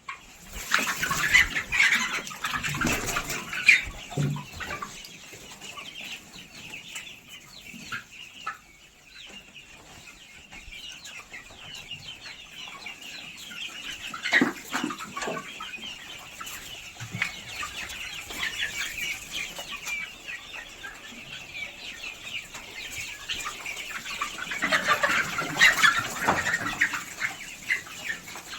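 A free-range flock of chickens, Black Australorps and Kadaknaths, clucking continuously, with louder flurries of calling about a second in, around halfway, and near the end.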